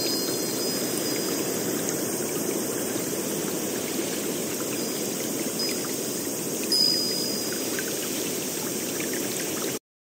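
Steady rush of running water, with a few brief high-pitched whistles over it, the loudest about seven seconds in. The sound cuts off abruptly near the end.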